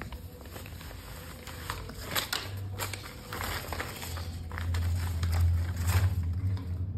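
Crinkling of a gold foil paper crown and rustling handling noise, with scattered light clicks, over a low rumble that grows louder in the second half.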